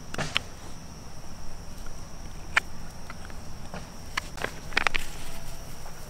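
A knife whittling a wooden stick: a handful of short, sharp scrapes, the loudest cluster near the end. Insects call in a steady high tone behind it.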